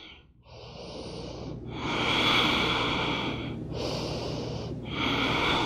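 A woman breathing audibly close to the microphone: about four long, even breaths in and out, each a second or two long with short pauses between them, as she holds a lifted leg in locust pose.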